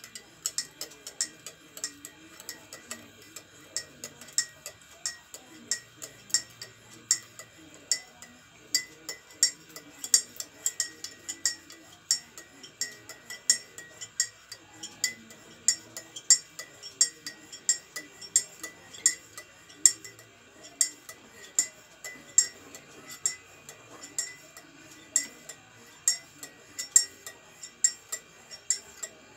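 A metal spoon stirring coffee with milk in a ceramic mug, clinking against the inside of the mug at about two clinks a second.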